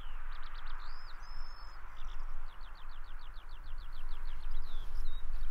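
Small birds singing over open farmland, with a run of quick, evenly repeated short notes about two and a half seconds in, over a steady low rumble.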